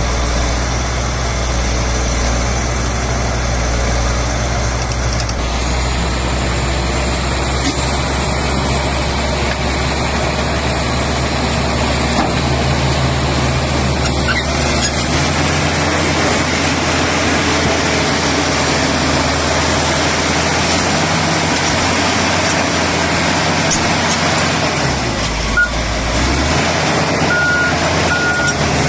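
Bulldozer diesel engine running steadily, its note changing about halfway through. Near the end a reversing alarm starts beeping at an even pace.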